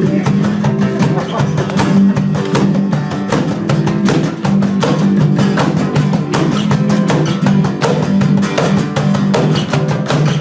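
Live band playing an instrumental passage: strummed guitar over held bass notes with a steady rhythm.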